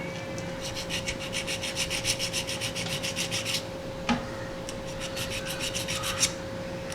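Small file scraping quickly back and forth on the fuse's solder pads of a power adapter's circuit board, roughening them to bright metal so the solder will stick. Two runs of rapid strokes, with a short pause and a click between them.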